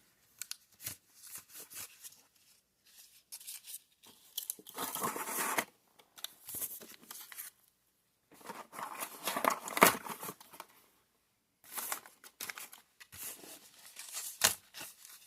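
Foil trading-card booster packs being torn open and handled: crinkling wrapper and small clicks, with two longer rips, one about five seconds in and a louder one around nine to ten seconds in.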